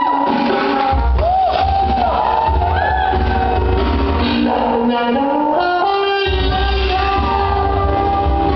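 Recorded dance music with a singing voice, played loud and steady; the bass drops out briefly near the start and again for about two seconds midway before coming back in.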